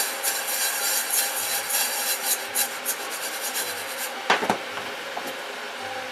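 Basmati rice grains rattling and swishing in a hot saucepan as the pan is shaken and tossed, heating the rice before the water goes in. The rattle stops after about four seconds, followed by a single sharp knock.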